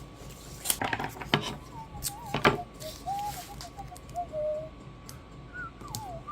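Small hardware or tools being handled on wood: a few sharp clicks and knocks in the first half, the loudest about two and a half seconds in. Then a faint wavering tone, like a whistled tune, ends in a falling glide.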